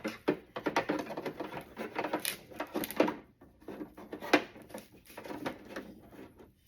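Plastic toy van and figures being handled: a dense run of small clicks, taps and rattles of hard plastic parts knocking together.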